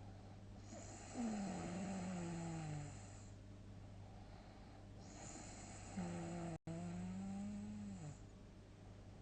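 A sleeper's heavy snoring: two long snores about four seconds apart, each a droning tone over breathy noise. The first slides down in pitch; the second holds steady and then drops at the end.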